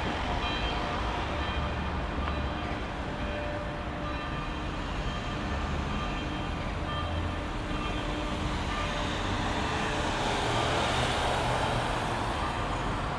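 Steady rumble of a moving vehicle, with faint tones coming and going above it.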